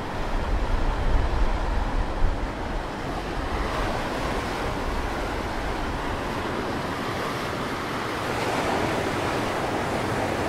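Sea waves breaking and washing over a rocky shoreline, a steady surf wash with a swell of surging water about eight seconds in. Wind buffets the microphone with a low rumble during the first few seconds.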